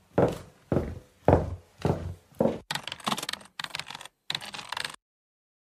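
About six evenly spaced footsteps, roughly two a second. These are followed by a quick burst of typing on a computer keyboard, a rapid run of clicks lasting about two seconds that stops abruptly.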